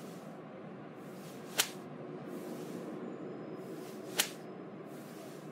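Steady low background noise with two sharp clicks, the first about a second and a half in and the second about four seconds in.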